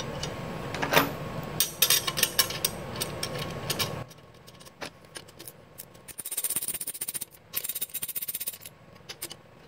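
Light metal clinks as a steel measuring bar and its bolts are set on a Dana 30 differential housing, then a hand ratchet clicking rapidly for about two seconds, starting around six seconds in, as a bolt is run down to clamp the bar.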